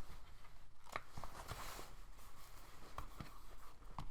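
A few faint, sharp clicks and taps from small parts being handled and fitted inside an opened MacBook Pro, in pairs about a second and two seconds in and once near the end.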